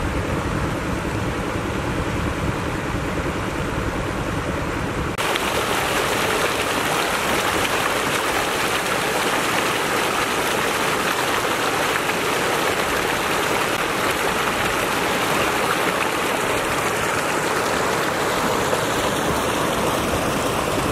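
Floodwater rushing and splashing as it pours over a submerged dirt road and down its bank. About five seconds in, the sound changes abruptly to a brighter, steadier rush.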